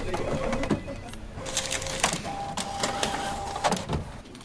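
Office photocopier running: a whirring mechanism with clicks and clatter in several short runs, the pitch of the whir changing partway through, and a knock near the end.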